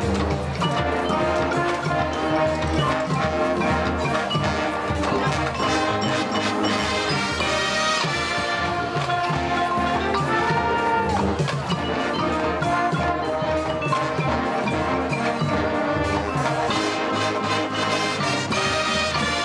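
High school marching band playing its field show: brass sounding sustained chords over marching percussion, with mallet instruments from the front pit.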